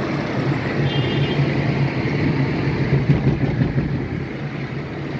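Car driving in city traffic, heard from inside the cabin: a steady low engine hum with road noise.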